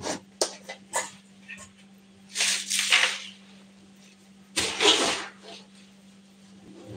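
Handling noises: a few light knocks, then two short rustling bursts about two seconds apart and a soft bump near the end, as a large plastic jar is taken down and put back on a shelf. A steady low hum runs underneath.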